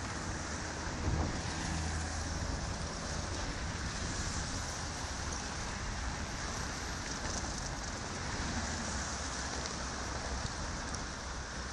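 Steady city road traffic: cars driving past with an even hiss of tyres and engine rumble.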